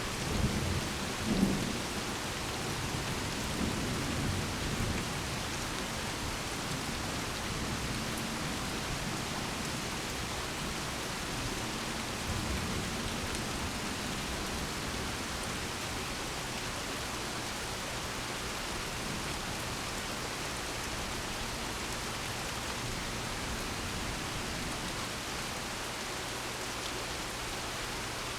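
Thunder rumbling over steady rain, loudest in the first few seconds with a fainter roll a little before halfway, then settling to rain falling on its own.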